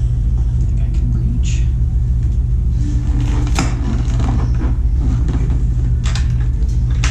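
A steady low rumble, with a sharp knock about three and a half seconds in and a few clicks near the end as a rider in boots climbs onto a motorcycle on its stand and sets his feet on the footpegs.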